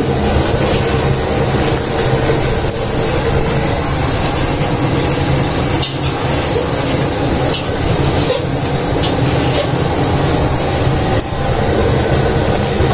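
Steady, loud rushing noise of a large commercial gas burner on full flame under a big pot of boiling rice water, with a few faint clinks and splashes from a wire-mesh strainer lifting the par-boiled rice.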